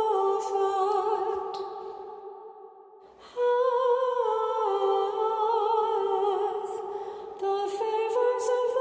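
A cantor's voice singing a slow chant melody in held, stepwise notes with slight vibrato. The voice fades out about two seconds in, with the church reverberation trailing off, and comes back in a little over a second later.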